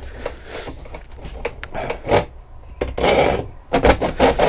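Hand hacksaw cutting through half-inch aluminum channel, metal scraping back and forth. The strokes are lighter and uneven at first, then louder and quicker from about halfway through.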